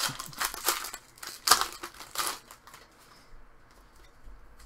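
Foil hockey card pack wrapper crinkling as it is torn open by hand, in several loud bursts over the first two and a half seconds, then quieter handling.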